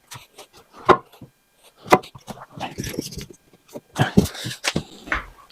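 Scattered knocks and light clatter from handling wooden base cabinets while levelling them with shims.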